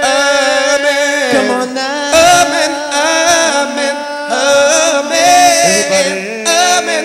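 Male a cappella vocal group singing in close harmony: held chords under a lead voice with vibrato, the chord changing every second or so.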